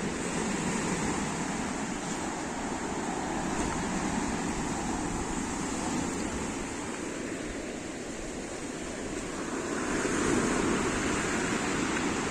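Surf of the storm-driven Black Sea breaking on the shore: a steady wash that swells about ten seconds in, with wind buffeting the microphone.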